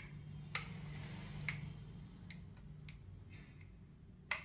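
Wall light switches being flipped: about half a dozen sharp clicks at irregular intervals, the loudest near the end, over a faint steady low hum.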